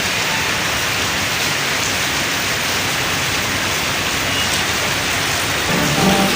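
Heavy monsoon rain falling steadily, an even hiss. About six seconds in, music with a steady pitch pattern starts over it.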